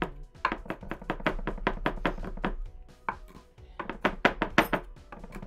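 A knife chopping garlic on a cutting board in quick strokes, about five a second, with a short pause a little after halfway. The board is not flat, so it knocks and rocks with each cut, which is what makes the noise.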